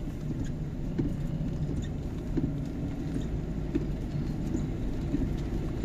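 Steady low rumble of a car driving slowly on a wet road, heard inside the cabin, with scattered faint ticks.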